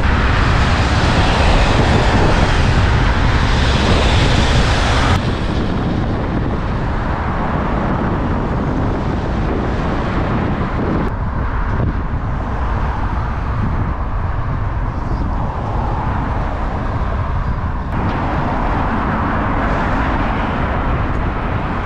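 Wind rushing over the microphone on a moving bicycle, a loud steady rumble with road noise, which shifts abruptly about five, eleven and eighteen seconds in.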